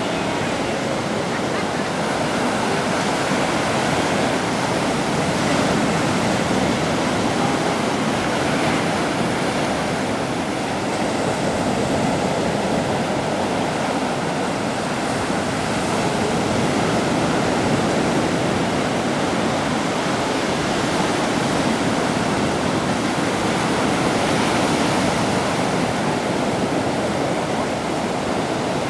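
Black Sea surf washing continuously onto the shore, a steady rushing noise.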